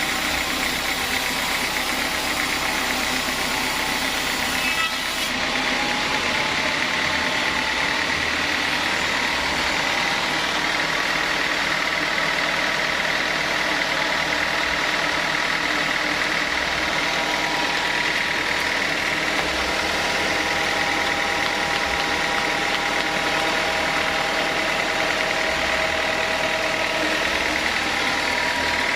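Sawmill saw and its drive running steadily as teak is sawn, a dense mechanical noise with a steady high whine; the highest hiss drops away about five seconds in.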